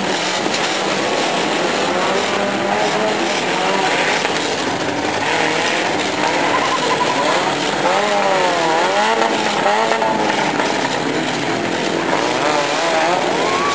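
Several demolition-derby car engines revving hard and dropping back over and over, the pitch rising and falling, over a steady wash of engine noise.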